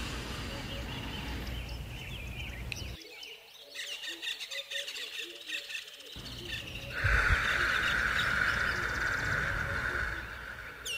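Nature ambience with birds chirping and calling. A low rumble drops out suddenly about three seconds in and comes back about three seconds later, and a louder steady hiss comes in near the middle and fades near the end.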